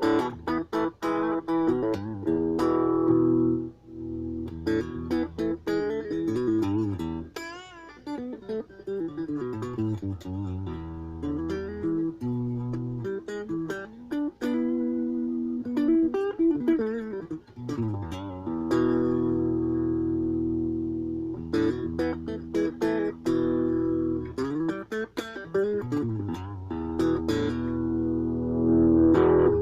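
Ibanez AXS42 guitar played solo, rewired with solid-core vintage wire: picked notes and chords that ring on at length, with a wavering vibrato on a held note about eight seconds in.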